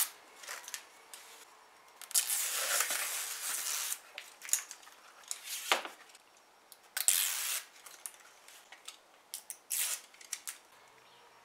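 Red release liner being peeled off the double-sided adhesive tape on a plastic rocker panel cover: a rasping, tearing noise in several pulls, the longest about two seconds, with small clicks and knocks as the panel is handled.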